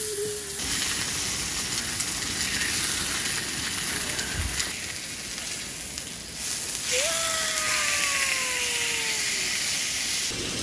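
Meat sizzling on a grill, a steady frying hiss. About seven seconds in, a single drawn-out tone slides downward for about two seconds over the sizzle.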